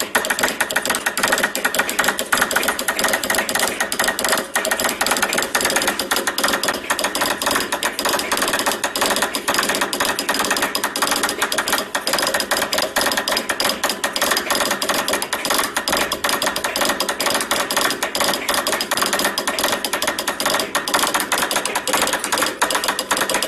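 Morse code sent by hand on a straight key at high speed: fast, unbroken clicking of the key.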